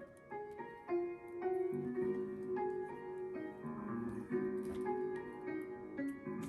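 Background music: a gentle piano tune, single notes and chords changing about every half second.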